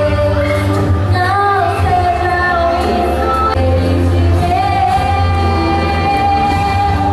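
A women's choir sings a gospel praise song over instrumental accompaniment with a strong, steady bass. The voices move through long held notes.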